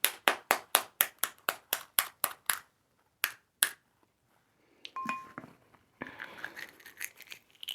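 A quick, even run of about a dozen sharp taps, about four a second, then two more taps; a short electronic beep sounds a couple of seconds later, followed by faint rustling.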